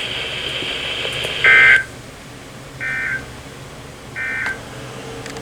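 NOAA Weather Radio EAS end-of-message signal: three short, buzzy bursts of SAME digital data about 1.4 s apart, marking the end of the warning broadcast. A steady radio hiss runs before the first burst and drops away with it.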